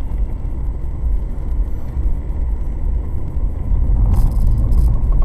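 Steady low rumble of a car on the move, with a brief hiss about four seconds in.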